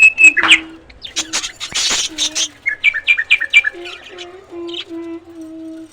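A budgerigar colony chirping and squawking, many short sharp calls overlapping, with a quick run of chirps about halfway and lower held notes near the end.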